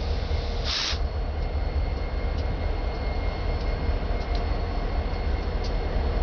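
Ferromex diesel locomotives passing close by: a steady heavy rumble of engines and wheels on the rails, with a few faint ticks. A short burst of hiss comes just under a second in.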